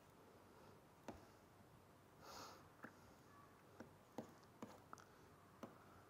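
Near silence, broken by faint scattered ticks and taps of a stylus writing on a tablet screen, and one soft hiss about two seconds in.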